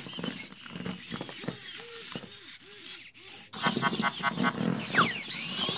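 Robopet toy robot dogs giving off electronic sound effects: a run of wavering, arching tones, then a quick series of about five beeping pulses around the middle, and falling chirps near the end.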